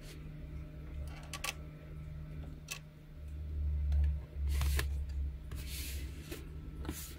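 Hands handling DJI FPV Goggles V2 and their cardboard box: scattered light clicks and taps from the goggles' plastic body, and a brief rustle of cardboard about six seconds in, over a steady low hum and rumble.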